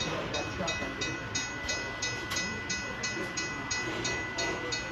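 Electronic grade-crossing bell on a model railroad layout ringing steadily at about three strikes a second, signalling a train approaching the crossing.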